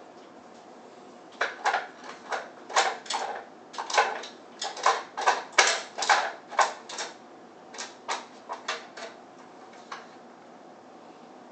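Hard plastic clacking as a dog noses at a Kyjen plastic puzzle treat toy, knocking its cups against the disc: about two dozen irregular clacks, thickest in the middle, with one last clack near the end.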